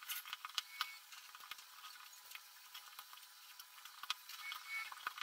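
Faint scattered clicks and small metallic snips as wire-stripper pliers cut and pry the nickel connecting strips off the cylindrical cells of a cordless tool battery pack, a little busier near the end.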